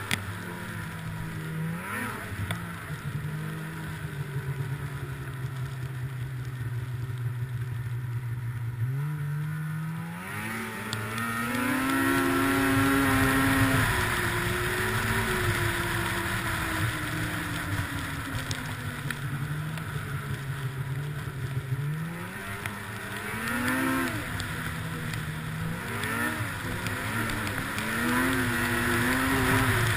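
Snowmobile engine under the rider, running at a steady pitch, then revving up with a sharp rise in pitch about ten seconds in as the throttle opens and slowly falling back. It revs up again a few times near the end.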